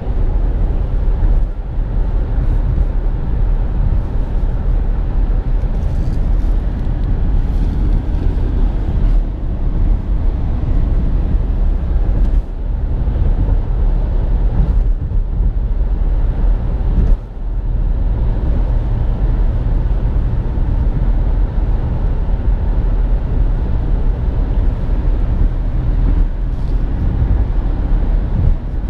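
A car on the move: steady road and engine rumble, deep and continuous, easing briefly about twelve and seventeen seconds in.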